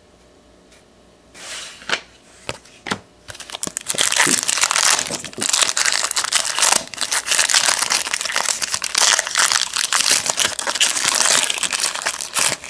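A foil trading-card pack wrapper being torn open and crinkled in the hands, a dense crackling that starts about three seconds in and goes on until near the end, after a few small clicks.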